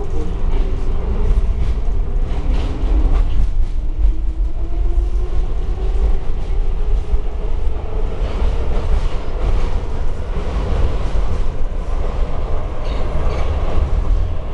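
Budapest Metro Line 3 train running in the tunnel, heard from inside the passenger car: a loud, steady, deep rumble of wheels on rails. Over the first few seconds a whine rises in pitch.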